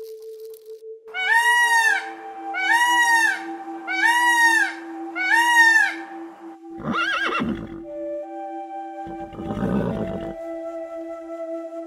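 An animal calling four times in a row, each call about a second long and rising then falling in pitch, followed by two shorter, different calls. Steady background music runs underneath.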